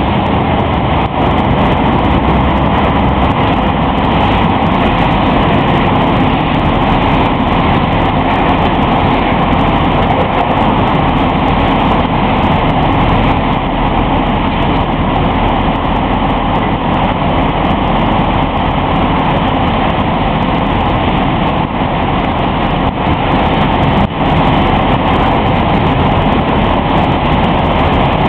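Heavy diesel site machinery running steadily, a constant engine noise with no distinct impacts.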